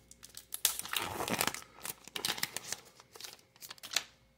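A baseball card pack's wrapper being torn open and crumpled by hand: an irregular run of crinkling and crackling that ends with one sharper crack near the end.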